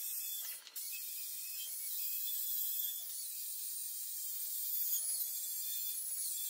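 Angle grinder with a thin cut-off disc cutting into the steel wall of a propane tank, giving a steady high whine whose pitch wavers as the disc bites. The sound drops out briefly about half a second in.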